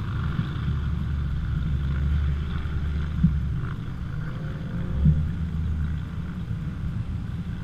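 Supercharged BMW E92 M3's 4.0-litre V8 running at low speed with a steady low rumble while the car creeps along. Two brief thumps come about three and five seconds in.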